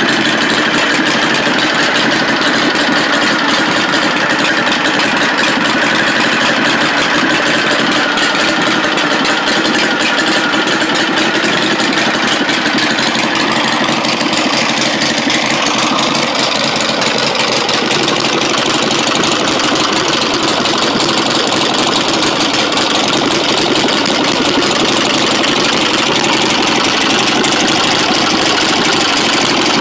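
1947 Harley-Davidson Knucklehead V-twin engine with a Weber carburetor, idling steadily.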